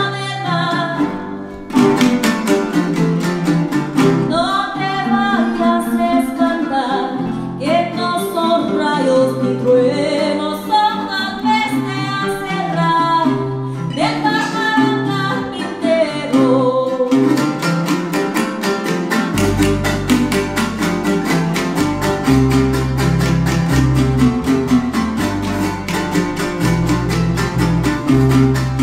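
Live son jarocho music: a woman sings a verse over fast-strummed jarana and requinto jarocho with electric bass. About 17 seconds in the singing stops and the strings play on, with the bass notes deeper and louder.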